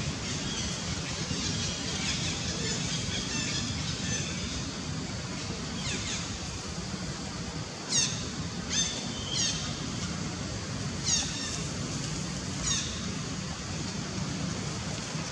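Young long-tailed macaques giving about six short, shrill squeals, each sweeping quickly down in pitch. They are spread through the second half, and the loudest comes about eight seconds in. A steady low background noise runs under them.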